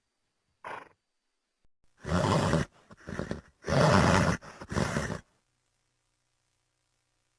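Sound-effect vocalizations of a Pachycephalosaurus dinosaur: one short call, then four loud roaring calls in quick succession starting about two seconds in, the third the longest.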